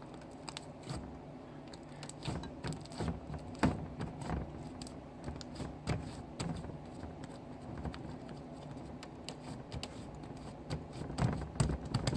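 Slime being handled and pushed into a large bowl: irregular sticky clicks and little squelching smacks, with soft scraping, busier near the start and again near the end.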